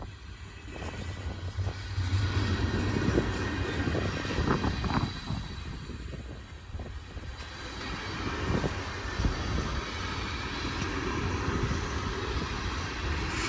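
Freight cars of a long manifest train rolling past: a steady low rumble of wheels on rail that swells about two seconds in, with occasional clanks and knocks.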